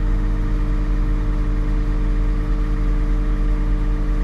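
Caterpillar 938 wheel loader's diesel engine running steadily under hydraulic load as the loader arms are raised on the joystick, heard from inside the cab: a steady hum with several held tones over a low rumble.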